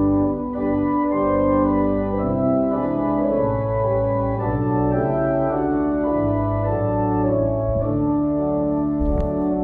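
Organ playing a hymn in held chords that change about every second.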